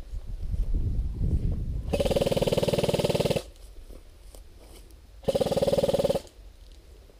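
Airsoft electric rifle firing two full-auto bursts, the first about a second and a half long, the second about a second, a couple of seconds apart.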